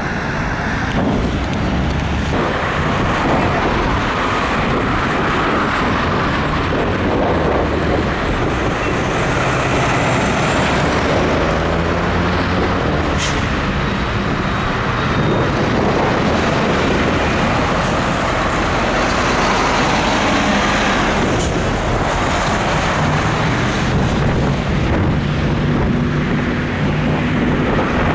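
Heavy diesel trucks driving past, a steady mix of engine and tyre noise, with an engine's hum standing out in the second half and two short sharp sounds about 13 and 21 seconds in.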